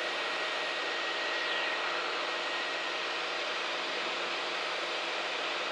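Steady engine and propeller drone of a floatplane in level flight, heard from inside the cabin as an even rushing noise with a faint steady hum.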